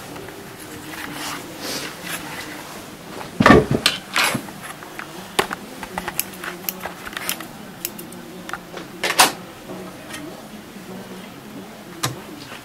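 Scattered clicks and knocks of plastic covers and parts being handled on an overlocker as it is opened up for rethreading, with one louder knock about three and a half seconds in.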